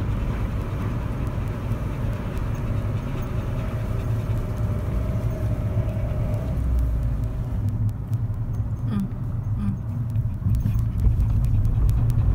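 Car cabin noise while driving: a steady low rumble of the engine and tyres on the road.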